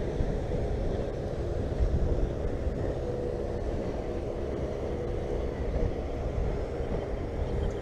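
Boat motor running steadily with a constant low hum, wind rumbling on the microphone.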